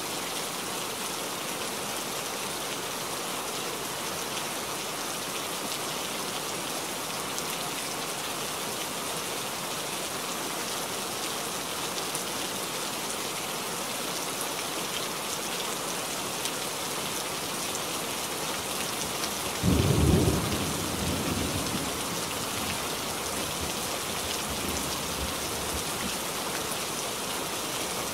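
Steady rain falling, with a single sudden thunderclap about twenty seconds in that rumbles away over a couple of seconds.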